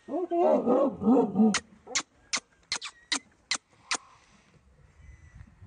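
German Shepherd dog growling and snarling for about a second and a half, then giving about eight short, sharp barks.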